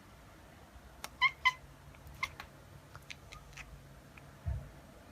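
A cat making a few short, high chirping meows, in quick pairs about a second in and again about two seconds in, with a few light clicks and a low thump near the end.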